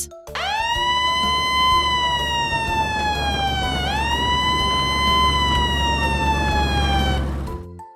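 Ambulance siren wailing in two slow rise-and-fall sweeps over a low steady rumble, cutting off about 7 seconds in.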